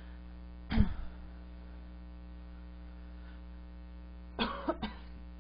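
Steady electrical mains hum with a low buzz. A short sharp knock comes about a second in, and a few brief small noises come near the end.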